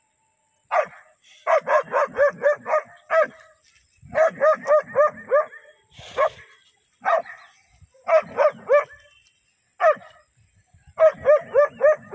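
German Shepherd barking in quick volleys of five to seven sharp barks, with single barks and short pauses between them. This is agitated warning barking at a water buffalo it is confronting.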